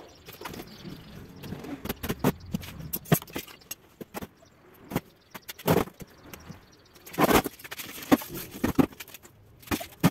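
Steel wheelbarrow being handled and turned upright onto its wheel on a tiled floor: irregular clanks, knocks and scrapes of the metal frame and tub, loudest about halfway through and again about seven seconds in.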